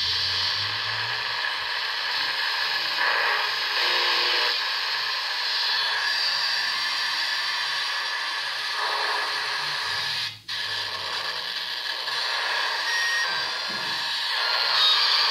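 Small portable radio switched on and hissing with static between stations while it is tuned, with a brief cut-out about ten seconds in and a couple of short faint whistles near the end.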